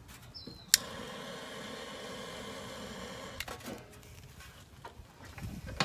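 A handheld butane torch lighter clicks on about a second in and hisses steadily for about two and a half seconds as it lights charcoal, then clicks off. A few faint knocks follow near the end.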